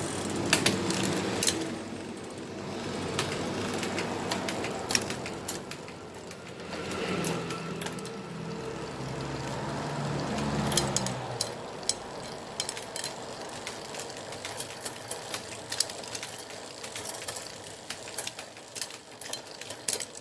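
Road bike drivetrain turned by hand: the chain runs over a newly fitted oval chainring and the rear sprockets with a steady whir that swells and fades in the middle, amid many sharp clicks.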